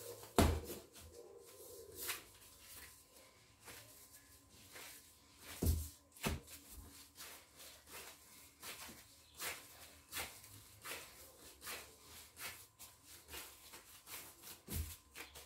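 Proofed bread dough being kneaded by hand on a countertop to knock the air out of it: irregular soft pats and thumps, a few of them louder.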